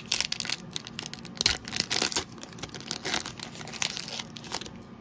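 Foil wrapper of a Topps Garbage Pail Kids Chrome card pack being torn open and crinkled by hand: a run of sharp crackles that die down near the end.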